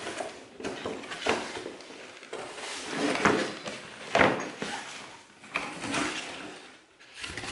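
Cardboard box being handled and its lid flap opened: scattered knocks and scraping of cardboard, the sharpest about three and four seconds in.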